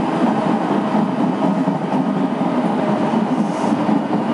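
Running noise inside an Odakyu 1000 series electric train moving along the line: a steady rumble of wheels on rail, with a faint steady tone underneath.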